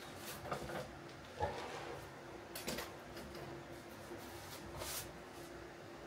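Scattered light knocks and clinks of steel tongs and a ceramic crucible being handled as the crucible of molten cast iron is lifted from a microwave kiln, with the sharpest knock about a second and a half in. A faint steady hum runs underneath.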